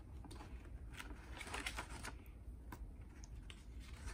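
Pages of a paperback picture book being flipped and handled: soft paper rustles and light, irregular ticks, faint over a low room hum.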